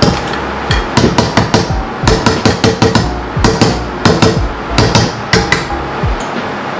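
A spoon or spatula knocking repeatedly against a mixing bowl while a stiff fruit-cake batter with mixed dried fruit is stirred. The knocks come about three to four a second in short runs and thin out near the end.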